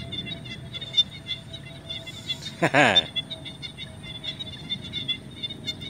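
Chorus of small frogs (nhái) calling in wet grass after rain: a dense, continuous run of short high chirps. A brief murmur of a man's voice stands out about three seconds in.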